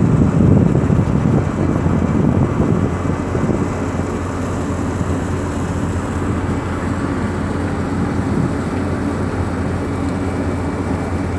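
Steady low drone of a passenger ferry's engines, louder and more uneven for the first few seconds, then even.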